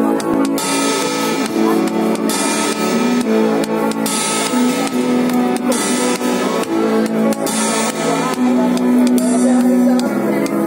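Ride cymbal struck with a drumstick about every second and a half, each stroke leaving a bright ringing wash, over loud music.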